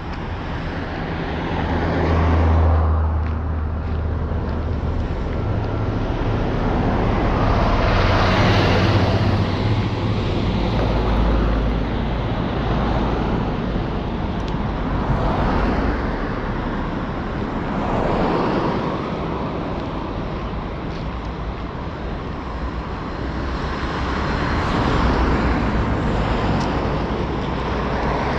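Road traffic: cars pass close by one after another, about five passes, each swelling up and fading away over a low rumble.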